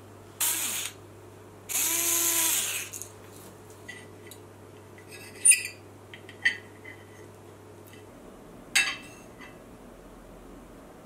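A plastic spatula scraping twice across a ceramic plate as a fried egg is slid onto a sandwich, then a few sharp clinks of a metal knife and fork against the plate as the egg on toast is cut.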